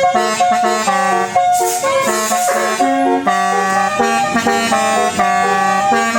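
Bus 'telolet basuri' musical air horn playing a fast melody of short pitched notes over a held low note.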